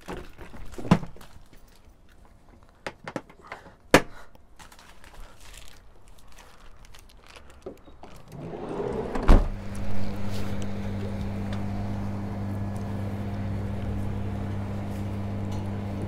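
Clatter and sharp knocks of tools and parts being handled in a plastic toolbox in a van, then a heavy thump as the van's sliding door shuts about nine seconds in, followed by a steady low hum.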